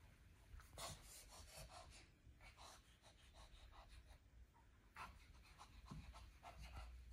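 Near silence: faint rustling and soft ticks scattered through, with a few slightly louder rubs about a second in and again about five seconds in.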